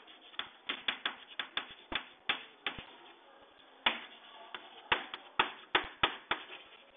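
Chalk tapping and scratching on a blackboard as a line of handwriting is written out: a quick, irregular run of sharp taps, with a pause of about a second near the middle.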